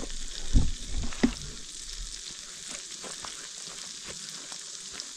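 Chicken fried steak frying in hot oil: a steady sizzle. A few sharp knocks come in the first second and a half.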